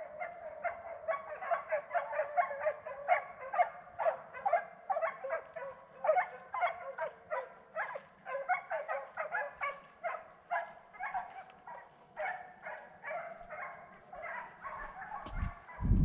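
Hunting dogs barking and baying continuously, two to three calls a second, on the trail of a wild boar. A few low thumps near the end.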